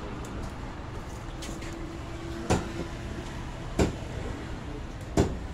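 A large knife chopping through a fish onto a wooden stump chopping block: three sharp knocks about a second and a half apart, over steady background noise.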